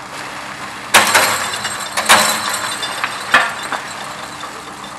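Heavy-vehicle engine running steadily, with a few loud sudden knocks and clatters over it: the loudest about a second in, another about two seconds in, and two shorter ones a little past three seconds.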